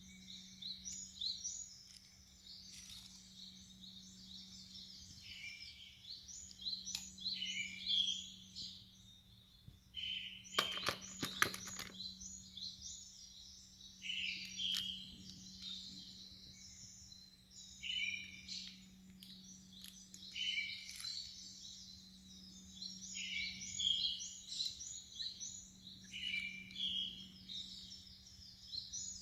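Birds singing in repeated short chirping phrases, with a quick cluster of sharp clicks about eleven seconds in and a steady low hum underneath.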